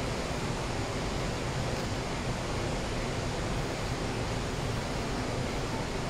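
Waterfall on the River Clyde (Falls of Clyde) in heavy flow, the water rushing down the rock steps with a steady, even noise.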